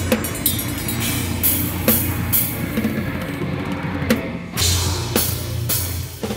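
Live rock band playing with a full drum kit to the fore: Sabian crash cymbals struck about twice a second over bass drum and a steady bass line, with a short break in the cymbals about four seconds in.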